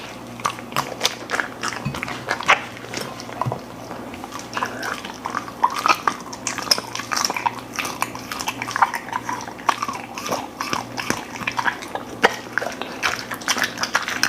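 A golden retriever chewing and crunching food, with irregular bites and wet mouth sounds.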